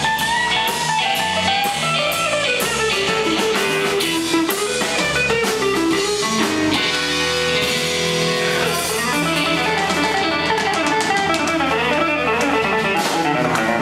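Live blues band playing: electric guitar lines over bass and drums, with steady cymbal strikes.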